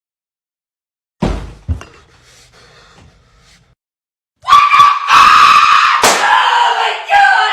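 A crash about a second in, with breaking and clinking debris trailing off, then after a short pause a loud, long, held scream used as a sound effect.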